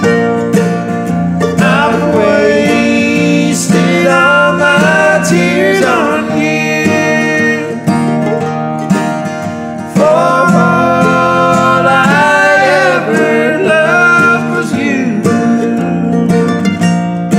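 Bluegrass played on an F-style mandolin and a strummed acoustic guitar, with a man singing the melody over them.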